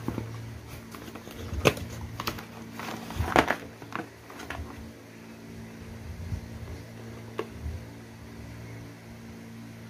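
Cardboard packaging and a plastic solar light control unit being handled while unboxing, with a few sharp knocks and scrapes, loudest just under two seconds in and again about three and a half seconds in. A steady low hum runs underneath.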